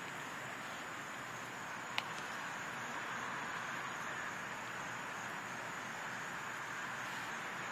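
Steady outdoor background noise with a faint high steady tone running through it, and a single sharp click about two seconds in.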